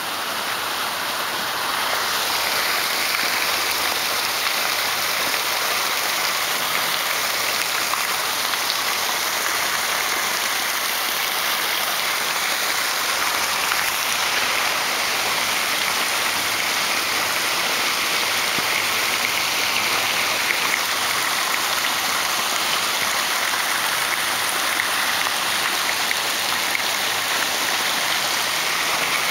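A steady, heavy downpour of rain splashing onto hard ground, with running water. It grows louder about two seconds in.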